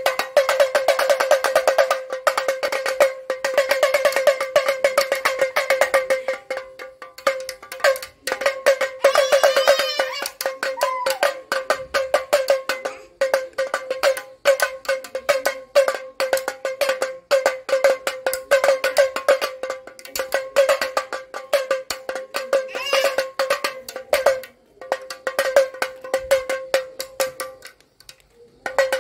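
Plastic toy damroo (pellet drum) twisted rapidly back and forth, its two beads on strings striking the heads in a fast rattling patter over a steady ringing tone. The playing stops briefly a few times and picks up again.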